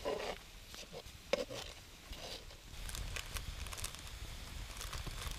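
A campfire crackling with scattered pops under a frying pan of bacon, the crackles thickening from about halfway on. A single sharp knock about a second in.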